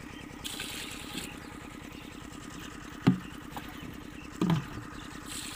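A steady engine hum runs throughout, with faint water swishing as potatoes are washed by hand in a steel pot. Two short, low sounds that drop in pitch come about three and four and a half seconds in.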